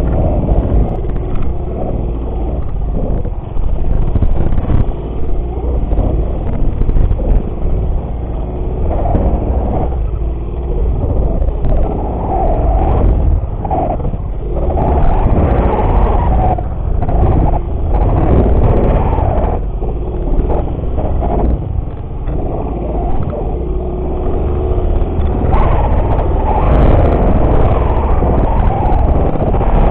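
Motorcycle being ridden off-road, its engine running under changing throttle, with heavy wind rumble on the microphone. The loudness swells and falls several times.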